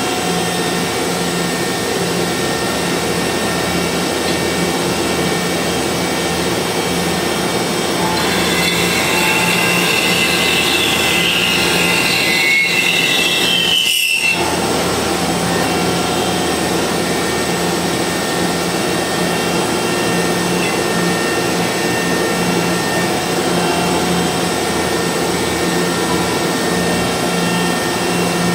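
A machine tool running steadily with a constant motor hum. From about eight seconds in, a high whine in several tones slides in pitch and draws together, then cuts off with a brief drop in the sound around fourteen seconds.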